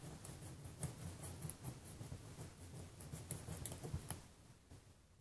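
Kitchen knife cutting raw chicken leg pieces apart at the joint on a plastic cutting board: faint scraping with a run of small irregular clicks and taps of the blade, busiest in the middle.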